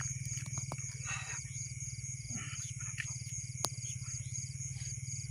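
Night chorus of insects: a high steady trill and a short chirp repeating at even spacing, over a low, fast-pulsing drone. A few short clicks sound through it.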